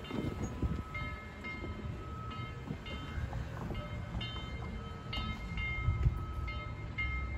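A train rumbling steadily, with a bell ringing about twice a second over it.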